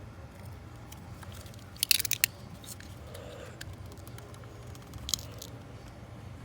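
Plastic clips on a TIPM wiring connector being pried at with tools, giving sharp clicks and snaps: a quick cluster of clicks about two seconds in and another pair a little after five seconds, over a steady low hum.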